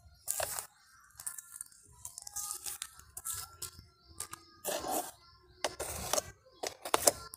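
Crunching and rustling of soil and dry peanut-shell mulch as rice paddy herb cuttings are pushed into the pot by hand, in several short bursts.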